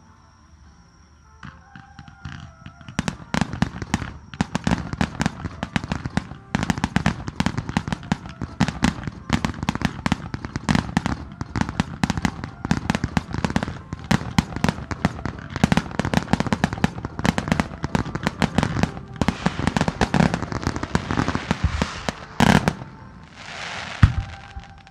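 A starmine barrage of fireworks begins a couple of seconds in: shells launching and bursting in rapid succession, many sharp reports a second. Near the end there is one much louder burst, a hissing rush, and another sharp bang.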